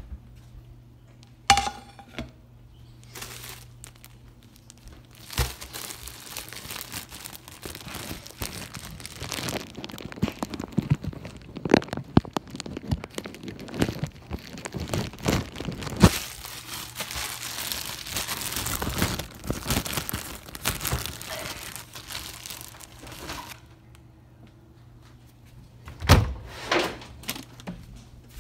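Kitchen handling noises: a sharp knock with a short ring about a second and a half in, then a long stretch of plastic crinkling and rustling, a bread bag being handled, full of small clicks and knocks. A few thumps come near the end.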